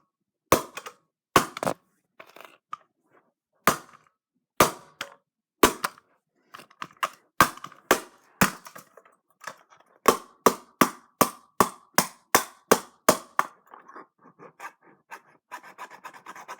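Repeated sharp hits on the hard plastic shell of a Razer DeathAdder computer mouse, struck in an attempt to break it open. The blows are spaced irregularly at first, then come in a quick run of about three a second. Near the end they give way to softer scraping on the shell.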